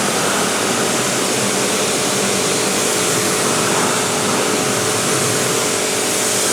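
AVA Evolution P80 pressure washer running steadily, its motor humming under the hiss of the high-pressure water jet spraying the base of a wheelie bin to strip off stuck-on muck.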